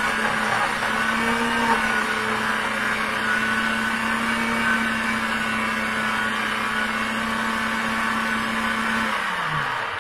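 Pampered Chef cooking blender running on its grind setting, a steady motor whir as it grinds bread into crumbs. Near the end the motor's pitch falls as it winds down.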